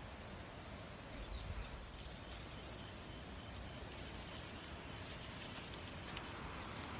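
Steady outdoor background hiss, with a few faint high chirps about a second in and a single short click about six seconds in.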